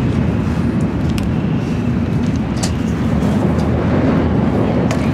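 Steady low rumble of a Shinkansen bullet train's passenger cabin while the train is under way, with a few light clicks.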